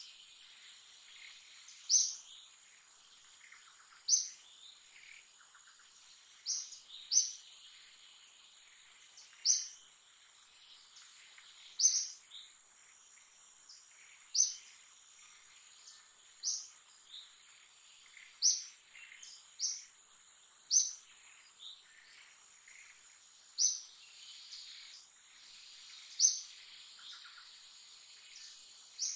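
A bird repeating a short, high call every two seconds or so, sometimes twice in quick succession, over a steady high-pitched insect drone.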